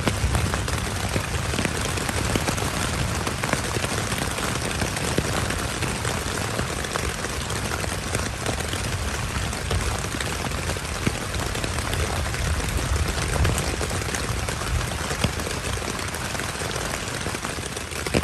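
Steady heavy rain falling at night, a dense, even patter of drops with a low rumble underneath.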